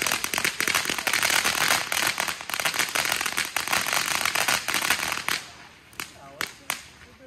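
A string of firecrackers going off in a dense, rapid run of sharp pops that stops about five seconds in, followed by three last scattered pops.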